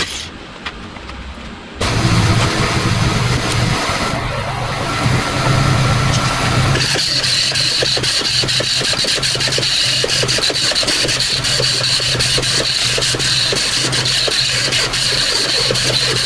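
A small pneumatic grinder sanding and grinding the freshly welded steel firewall. It starts up about two seconds in, and from about seven seconds in it runs with a steady high whine and a scratchy sound of abrasive on metal.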